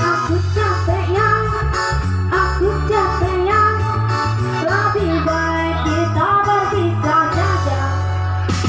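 A young girl singing a melody over backing music with a steady beat and bass line.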